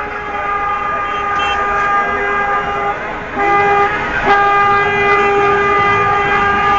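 Car horns honking in long, held blasts that overlap, growing louder about halfway through.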